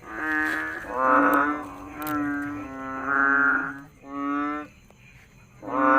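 Frogs calling over and over: about six steady-pitched calls, each under a second long, with short pauses between them.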